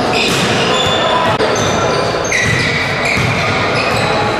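Indoor basketball game: sneakers squeaking sharply on the hardwood court again and again at several different pitches, over a steady echoing din of the gym with the ball bouncing.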